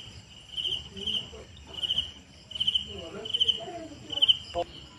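Cricket chirping, short pulsed chirps repeating roughly twice a second.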